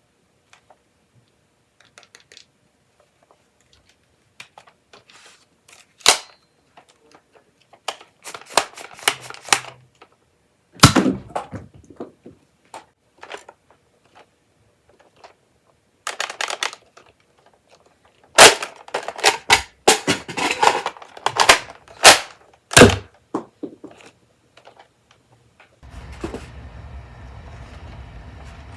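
Toy foam-dart blasters being handled and reloaded: plastic clicks, clacks and snaps of magazines, darts and priming slides. They come scattered at first, then in a fast run of loud sharp clacks past the middle. A low steady hum sets in near the end.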